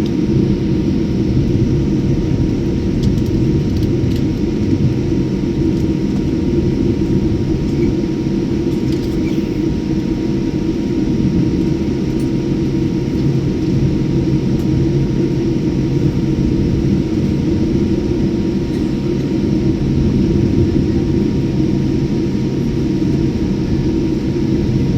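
Steady airliner cabin noise: a loud, constant engine rumble with faint steady hums above it, holding the same level throughout.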